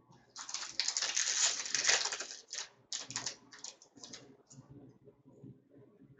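A foil wrapper of a Fleer Ultra hockey card pack being torn open and crinkled for about two seconds, followed by several short crisp flicks as the cards inside are handled, fading out toward the end.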